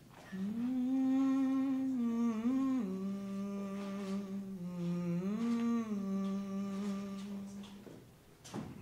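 A woman's voice humming a slow melody in long held notes that step between a few low pitches, beginning about a third of a second in and fading away near the end.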